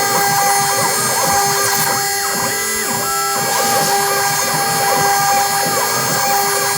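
Homemade CNC router cutting: a steady machine whine, with the axis drive motors whining up and down in pitch over and over as the axes move back and forth.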